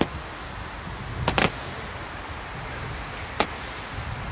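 Consumer fireworks going off with four sharp bangs: one at the start, two close together about a second and a half in, and one near the end.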